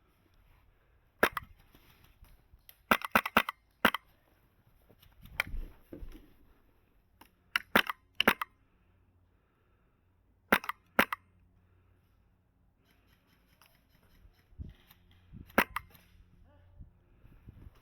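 HPA-powered airsoft rifle (Polarstar Kythera) firing sharp single shots and quick strings of two to four shots, spread out with pauses between.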